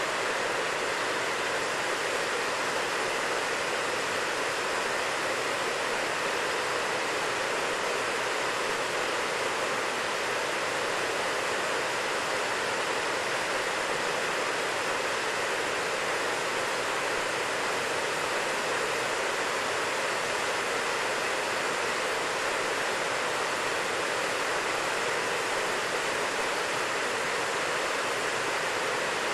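Steady rushing of water pouring over a concrete dam spillway into the pool below.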